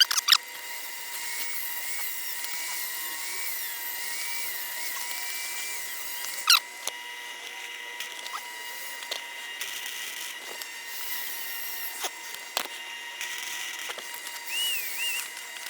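Flux-core wire welder arc crackling and hissing in stretches as it lays a bead on thin 16-gauge steel exhaust pipe, with a few sharp clicks.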